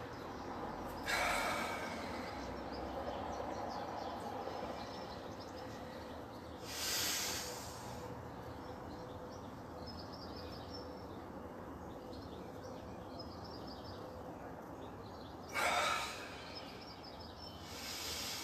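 A person taking deep breaths in and out during an overhead stretching breathing exercise, four audible breaths spread across the stretch, over steady background noise with faint bird chirps.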